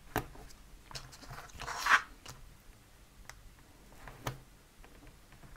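Double-sided adhesive tape being unrolled and pressed onto paper glue flaps: a few light taps and paper rustles, with one short tearing pull of tape off the roll about two seconds in, the loudest sound.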